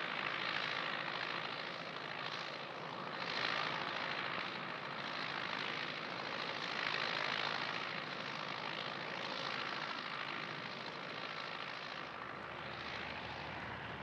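Turbocharged Ford 7710 tractor's diesel engine running under ploughing load, a steady drone that swells and fades gently every couple of seconds.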